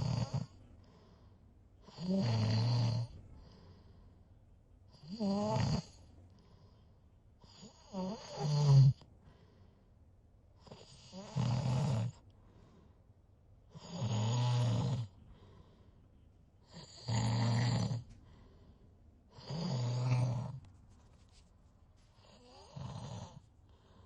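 Snoring in a steady rhythm: about eight snores, one roughly every three seconds, each lasting about a second, with a shorter, fainter one near the end.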